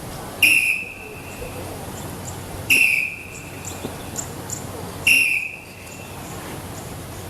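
A whistle blown in three short, sharp blasts at an even pace, about two seconds apart.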